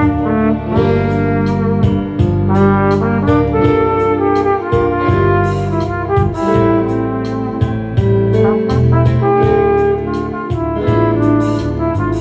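Flugelhorn playing a melody, moving note to note, over a backing track with a steady drum beat and bass.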